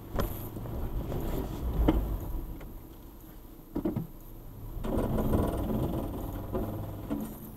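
Toyota FJ Cruiser's 4.0-litre V6 running under low-speed load as the truck crawls over loose rock, with a few sharp knocks along the way. The engine grows louder about five seconds in as more throttle is given.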